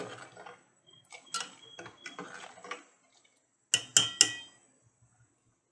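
A metal ladle stirring rasam in an aluminium pot, with faint scraping and clinking. About four seconds in it knocks sharply against the pot three times in quick succession, each knock ringing briefly.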